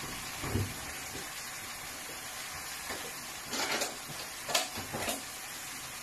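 Chicken, leek and onion frying in a pan with a steady sizzle, broken by a few short clattering knocks of a utensil or cookware a little past the middle.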